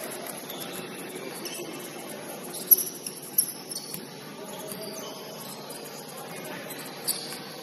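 Basketball shoes squeaking on a gym floor: a few sharp, high squeaks about three seconds in and again near the end, over a steady hubbub of a large hall.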